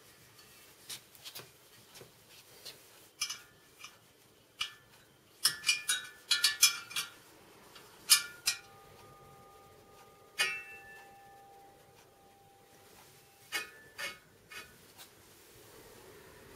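The stainless steel spokes of a freshly laced motorcycle wheel clink and ping as a spoke wrench works them during truing. The sharp metallic clicks come in scattered clusters, and a few spokes ring on with a clear tone for several seconds.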